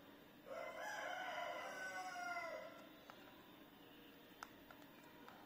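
A loud animal call, like a rooster's crow, about two seconds long, starting about half a second in and falling away at its end. A few light clicks of the flip phone's keypad buttons follow near the end.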